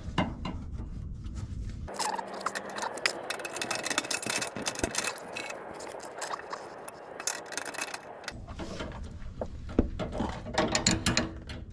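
Hand tools working on tight bolts under a vehicle: scattered metallic clicks and scraping of tool against metal.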